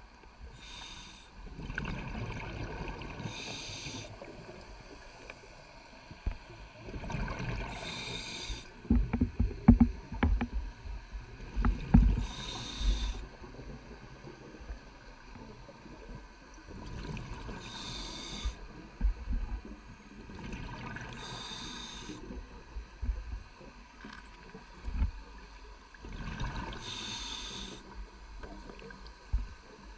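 Scuba diver breathing through a regulator underwater: a hiss on each inhalation, about seven in all at intervals of a few seconds, with low rumbling, gurgling bursts of exhaled bubbles between them, loudest about a third of the way in.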